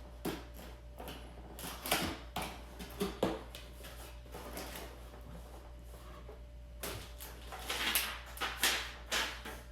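Camera box being opened and its packaging handled: scattered cardboard and paper rustles and small knocks, with a louder stretch of rustling about seven to nine seconds in.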